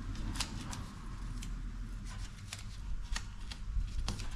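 Masking tape being pressed and smoothed by hand onto a rusty sheet-metal firewall: scattered light crackles and taps, over a low steady hum.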